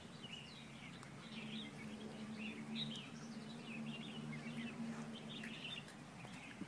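Small birds chirping, many short irregular calls, over a faint low steady hum that swells from about a second in and fades near the end.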